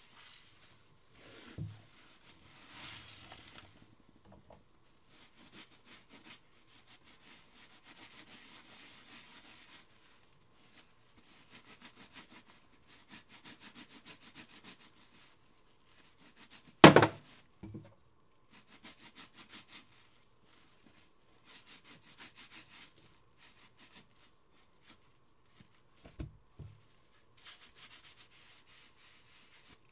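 Kitchen sponge scrubbing foamy cleaner on a stainless steel sink basin, in bursts of rapid back-and-forth rubbing strokes. There is a loud sharp knock about halfway through and a few softer thumps near the start and near the end.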